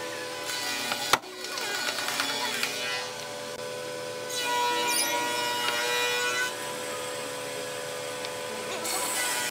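Small pieces of wood handled on a workbench: one knocks sharply against the bench about a second in, then the pieces scrape and slide. In the middle, a plastic glue bottle is squeezed over a wooden joint, a hissing squirt lasting about two seconds.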